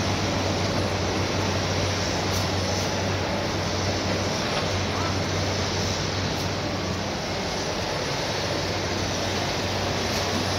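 Heavy earthmoving machinery, excavators and dump trucks, running steadily: a continuous low engine hum under broad machine noise.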